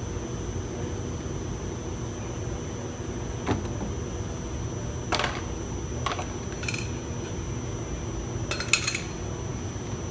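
A few sharp clicks and clinks, about five, the loudest near the end, over a steady low background hum, as hand tools and trim parts are handled during work on a car door.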